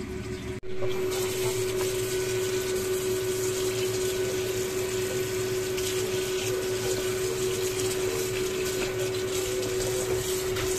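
Tap water running into a plastic basin of mushrooms and vegetables while a hand swirls and rinses them, over a steady hum. The water starts about half a second in, after a brief break.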